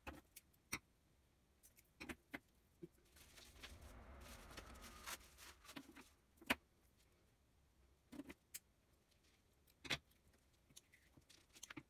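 Faint handling of craft materials on a table: scattered light taps and clicks as yarn and string are moved and laid on a paper collage, with a soft rustle about three to five seconds in.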